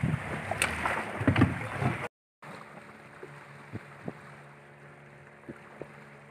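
Choppy water and wind around a small boat, with a few sharp knocks as it bumps and is handled beside the wooden fishing platform. After a sudden cut about two seconds in, a much quieter stretch with a faint steady low hum and a few light clicks.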